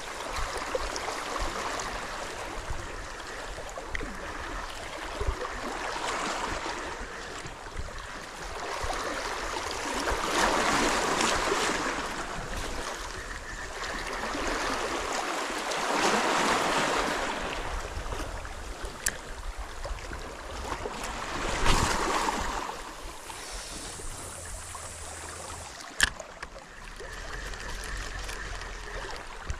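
Sea waves washing against shoreline rocks, the wash swelling and falling back every few seconds. Near the end there is a single sharp click.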